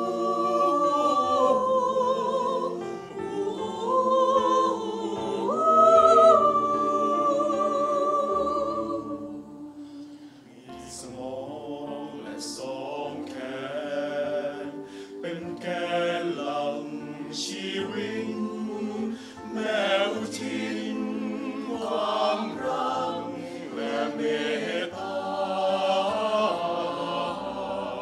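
Mixed choir of men's and women's voices singing in harmony. It holds long chords for about the first nine seconds, then moves into a softer passage of shorter notes.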